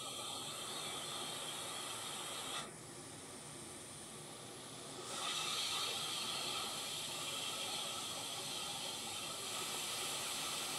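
Hot air rework station blowing a steady hiss of hot air while reflowing solder to attach a TPS65992 chip to a laptop motherboard. About three seconds in, the hiss turns duller and quieter for a couple of seconds, then comes back.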